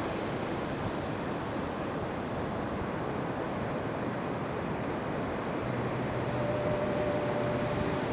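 Ocean surf breaking on a rocky beach: a steady, even roar of waves. Faint steady low tones join in about six seconds in.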